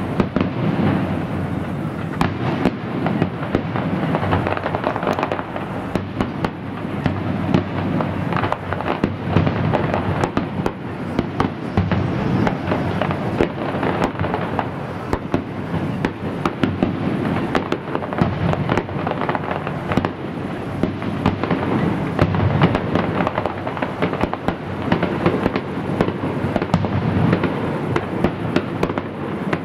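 Fireworks display: a continuous barrage of bangs and crackles, one after another without a pause.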